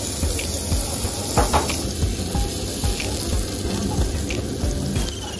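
Meat sizzling on a yakiniku grill: a steady hiss.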